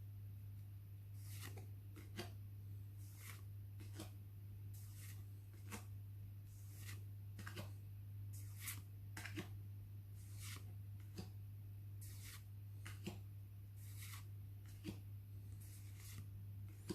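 Trading cards being slid off a freshly opened booster pack one by one, giving soft swishes and clicks about every half second to a second. A steady low hum runs underneath.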